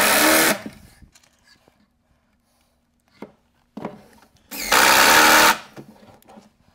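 Makita 18V cordless impact driver running in two bursts of about a second each, driving screws through the side of an upper cabinet to join it to the one clamped beside it. A couple of short knocks fall between the bursts.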